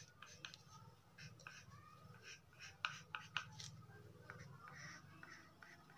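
Faint scratching of a pencil on paper in short, irregular strokes as lines are sketched, over a low steady hum.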